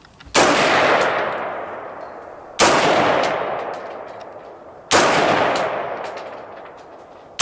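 Rifle shots fired slowly, about two seconds apart, three in all. Each sharp crack is followed by a long echo that fades over about two seconds. A fourth shot comes right at the end.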